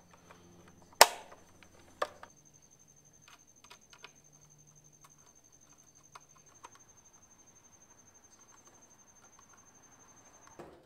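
Plastic front cover of a Vevor 2.2 kW VFD (variable frequency drive) snapped into place: one sharp click about a second in, a smaller click a second later, then a few faint handling ticks on the plastic housing.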